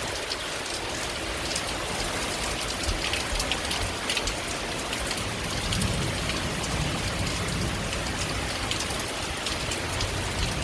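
Heavy thunderstorm rain coming down in sheets, with many small drop impacts, while gusty wind rumbles on the microphone.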